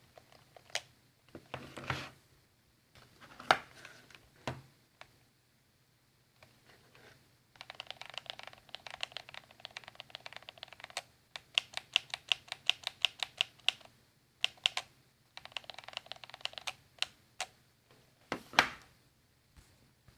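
Arcade joystick with a plastic sleeve being worked rapidly, clicking and knocking. There are a few single knocks at first, then long runs of quick clicks, about five or six a second, and one loud knock near the end.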